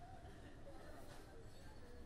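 Near silence: a low room hum, with a faint scratch of a marker pen drawing a stroke on paper about a second in.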